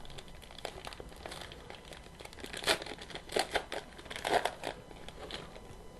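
Plastic wrapper of a trading card pack crinkling and tearing as it is opened, in irregular bursts that are loudest in the middle.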